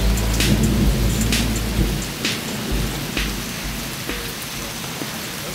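Thunderstorm: steady rain with a low thunder rumble that dies away about two seconds in, and scattered sharp taps of drops.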